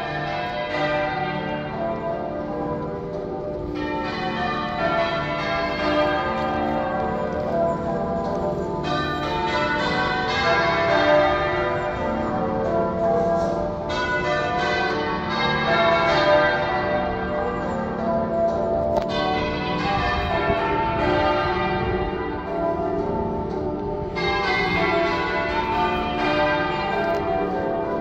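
Cathedral bells change-ringing half-muffled: rows struck open alternate with rows struck muffled, each about five seconds long, so the peal goes bright then dull in turns. Half-muffled ringing is the traditional sign of mourning and remembrance.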